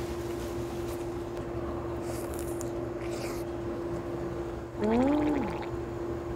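A person chewing a mouthful of burger, with two short crisp smacking noises a couple of seconds in and a closed-mouth "mmm" of enjoyment, rising then falling, about five seconds in. A steady low hum runs underneath.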